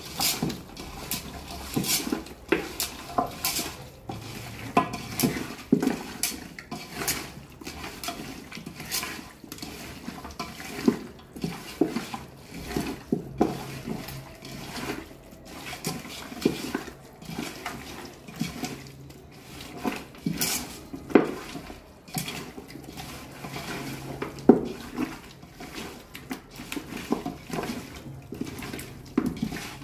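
A hand squishing and mixing wet marinated chicken in an aluminium pot, with watery squelching and irregular knocks and scrapes against the pot's metal side.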